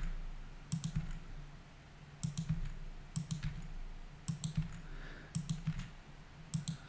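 Computer keyboard and mouse clicking in small groups about once a second: the E key pressed and the mouse button clicked over and over to extrude curve points one after another.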